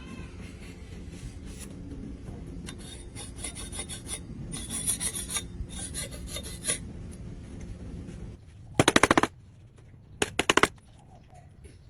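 Rasping and rubbing on wood over a steady hum, then two short bursts of rapid sharp clicks, about nine and ten and a half seconds in.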